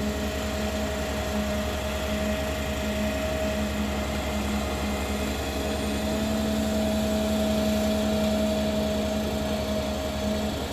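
Ponsse Elephant King forwarder's diesel engine running steadily while its hydraulic crane swings a grapple-load of logs onto the bunk, a low hum with a steady whine over it.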